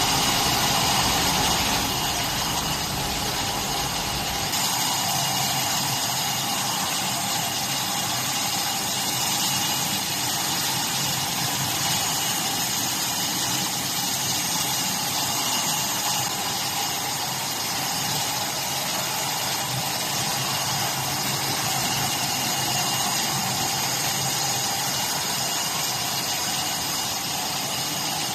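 Automatic glass bottle washing machine running steadily: a continuous machine hum with a few constant whining tones over an even noise. A deep rumble drops out about four seconds in.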